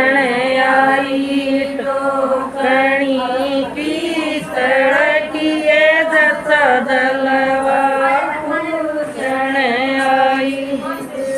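A group of women singing a Haryanvi jalwa pujan folk song together in long, held, chant-like lines.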